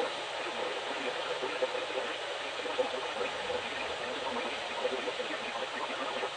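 Steady hiss of radio static from a weather or emergency radio receiver, an even noise with no tone or rhythm, strongest in the middle range.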